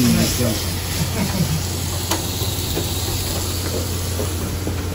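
Meat sizzling on a gas tabletop barbecue grill under low chatter of diners, with a steady low hum and one sharp click about two seconds in.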